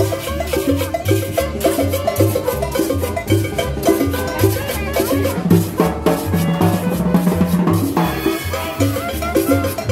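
Live band playing upbeat dance music: drum kit with snare and cymbal, conga drum and upright bass keep a steady beat and bass line under a repeating melody.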